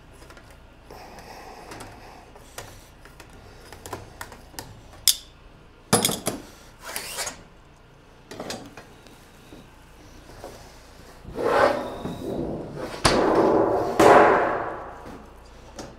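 Hand seamer and sheet-metal roofing panel being worked: scattered clicks and knocks of metal on metal, with a short rasping stretch about six seconds in and a longer, louder one near the end as the sheet is shifted and flexed.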